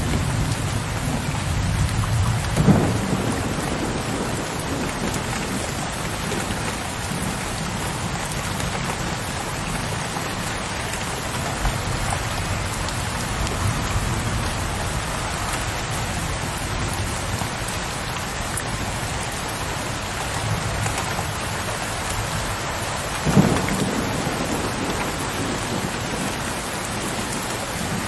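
Steady rain pattering on a window ledge, with low rolling thunder at the start. Two short, sharper thunder cracks come, one about three seconds in and one near the end.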